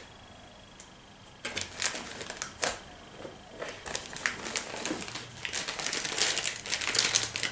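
Plastic bags crinkling and rustling with small clicks and knocks as bagged parts are handled and pulled from a cardboard box, starting about a second and a half in after a quiet start.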